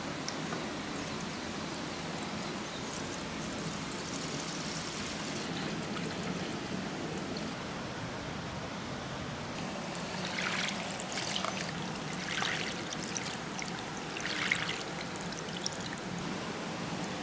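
Water running steadily down a pump-fed nagashi somen water slide, pouring and trickling. In the second half, several brief rattling splashes from marbles running through the watery channel stand out over the flow.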